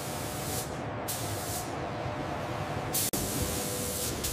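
Paint spray guns hissing, the hiss cutting in and out in stretches of a second or so, with a short break about three seconds in.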